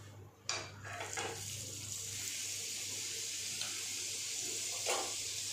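A spoonful of butter knocked onto a hot pan about half a second in, then sizzling steadily as it melts. A second knock comes near the end.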